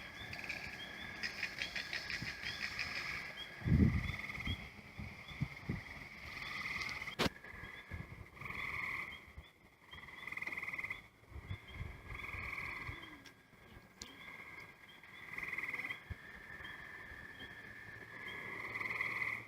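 Rhythmic animal calls: short pulsed calls repeating about every one and a half to two seconds over a faint steady high chirping, with a few low thumps, the loudest about four seconds in, and a sharp click near seven seconds.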